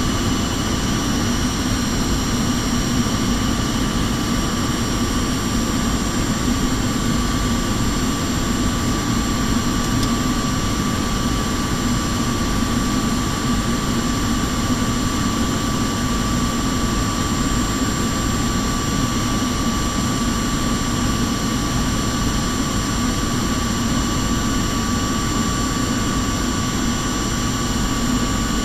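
Airliner cabin noise during descent: steady engine drone and rushing airflow, with a few thin, steady whining tones on top.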